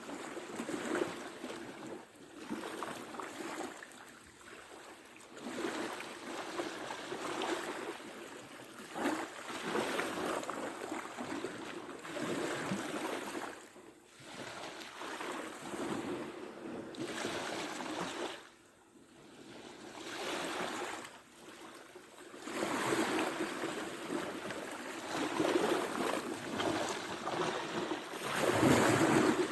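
Ocean surf, waves breaking and washing in as a rushing noise that swells and eases every few seconds, with a brief lull about two thirds of the way through.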